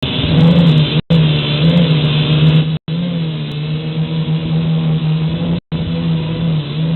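Syma X5HW quadcopter's four small brushed motors and propellers buzzing steadily in flight, heard through its onboard camera's microphone, the pitch wavering slightly. The sound cuts out briefly three times.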